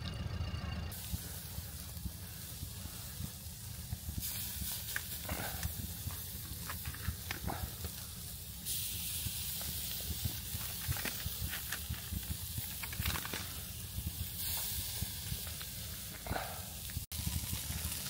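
Marinated chicken sizzling over charcoal on a small steel grill: a steady hiss with scattered faint crackles, the hiss turning brighter and dropping back in sudden steps.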